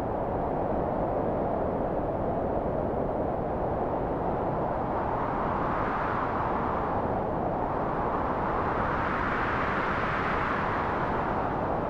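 Wind blowing steadily, with gusts that swell and rise in pitch about halfway through and again near the end.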